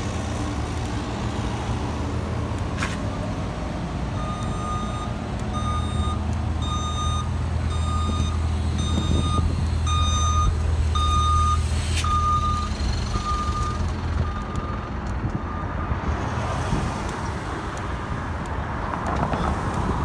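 A truck's reversing alarm beeping at a steady pace, about one and a half beeps a second, over the steady hum of its idling engine; both stop about two-thirds of the way through, leaving street and wind noise.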